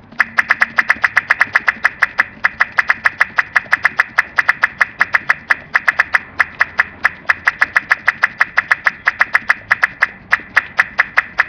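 A child making rapid popping clicks with his mouth, a steady train of about six or seven sharp pops a second, crackling like mini firecrackers.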